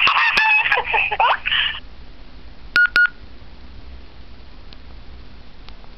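A small child's giggling played back through a flip phone's tiny speaker, stopping just under two seconds in. About three seconds in come two short keypad beeps from the phone as the playback is stopped and the list of recordings comes up.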